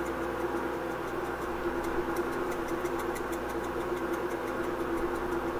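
A steady mechanical hum with a few held tones fills the kitchen, over faint irregular ticking from a cream sauce heating in a skillet on the stove, mostly through the middle.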